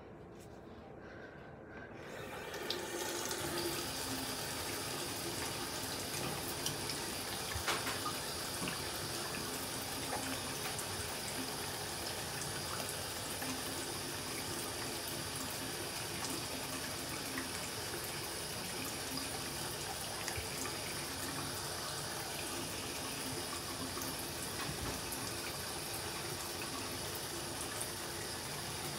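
Water running steadily from a tap or shower, starting about two seconds in.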